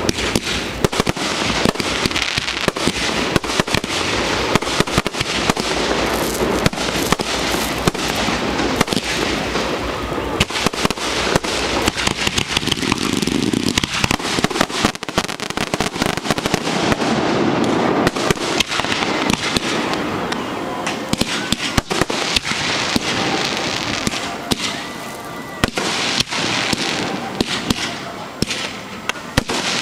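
Fireworks display at close range: aerial shells going off in a dense, continuous run of sharp bangs and crackling, many reports a second.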